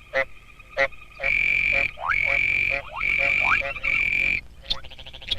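A chorus of frogs giving mating calls: four long, loud buzzing trills of about a second each, one after another, over short clicking calls and quick upward-sliding croaks.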